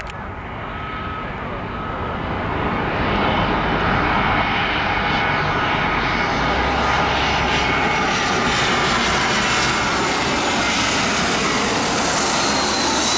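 Airbus A320-232 airliner's IAE V2500 turbofan engines during its landing, growing louder over the first few seconds as the jet nears, then holding a steady, loud jet rumble and hiss.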